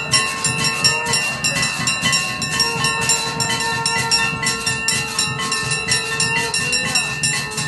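Temple bells clanging rapidly and without pause, several strikes a second, their ringing tones sustained over the strikes.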